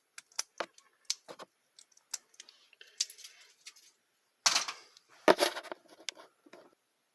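Small metal padlock being handled and worked: a run of light, separate clicks, then louder metallic rattles and clunks about four and a half seconds in.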